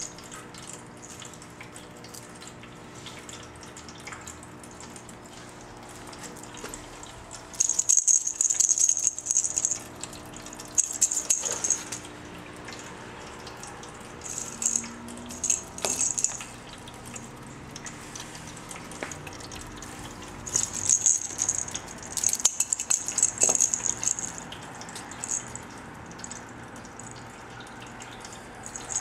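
A small plastic ball cat toy rattling and jingling in bursts of a second or two as a kitten bats and rolls it across a hard floor, with a faint steady hum in the quiet stretches between.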